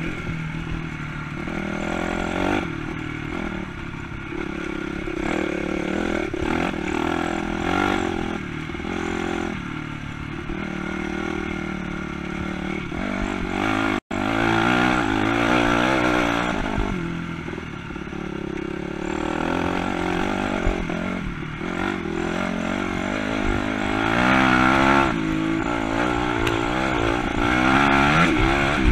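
Honda CRF250 single-cylinder four-stroke dirt bike engine running under way on a trail, its pitch rising and falling as the throttle is worked, louder near the end. The sound cuts out for an instant about halfway.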